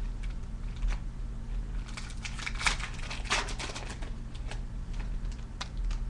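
Foil trading-card pack wrapper being torn open and crinkled in the hands, with a dense run of crackles about two to three and a half seconds in and scattered lighter crinkles around it.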